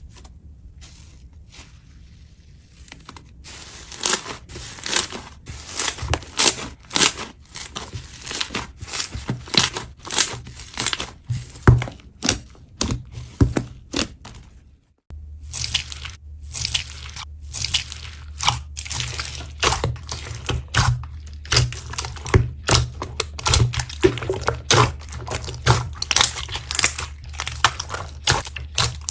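Slime being handled, giving dense, irregular crunching and crackling clicks, several a second, with a short break about halfway through.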